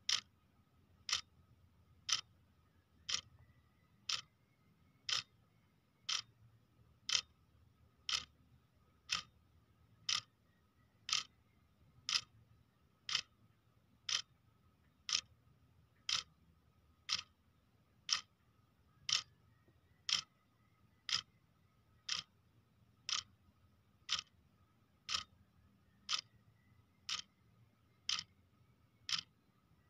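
Clock ticking steadily at about one tick a second.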